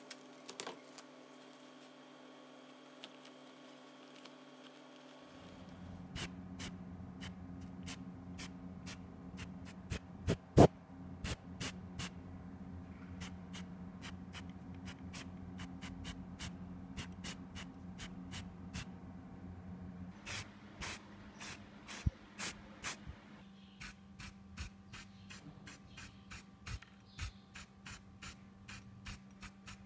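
Scattered sharp clicks and taps of small plastic model parts being handled and masked, with one louder knock about ten seconds in, over a steady low hum that starts about five seconds in.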